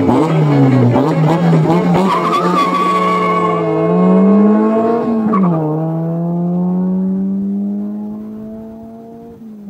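Chevrolet S-10 pickup accelerating away: the engine revs up, drops in pitch at a gear shift about five and a half seconds in, then climbs again as it fades into the distance.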